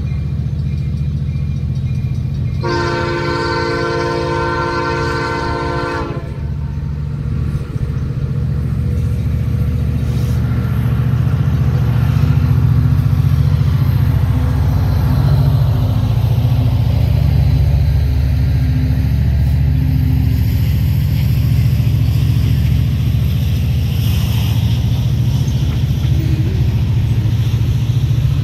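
Freight train with Canadian National diesel locomotives: one horn blast of about three seconds, a few seconds in. The locomotives then pass with a loud low engine rumble that swells as they go by, and the tank cars roll after them with a steady rumble.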